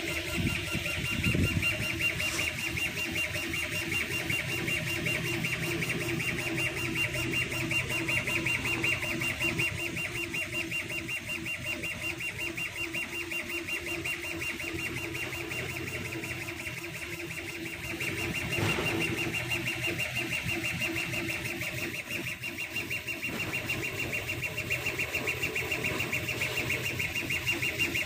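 CO2 laser engraving and cutting machine running a raster engrave: its motors whir in a rapid, even pulse as the laser head sweeps back and forth, over a steady machine hum.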